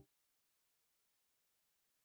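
Silence: the soundtrack is completely empty.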